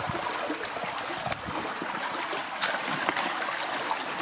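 Steady rushing of a stream in full flow, with a few sharp crackles and rustles of dry bramble stems being pushed aside underfoot.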